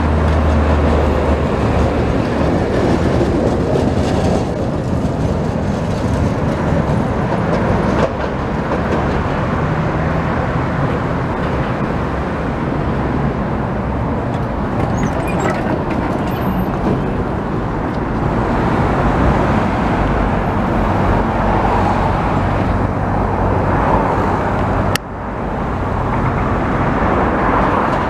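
Articulated electric trams running past on street track, a steady rumble of wheels and running gear with a low motor hum, mixed with passing road traffic. The sound breaks off and restarts twice, about 8 seconds in and near the end, as one tram pass gives way to another.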